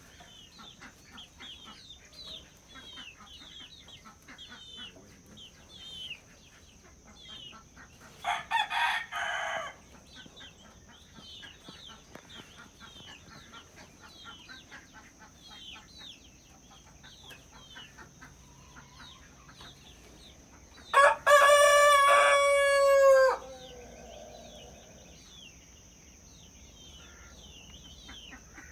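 Farmyard chickens: a loud call of about a second and a half from the flock about a third of the way in, then a rooster crowing once, loud and drawn out for about two seconds, near the end. Faint chirping repeats throughout over a steady high-pitched whine.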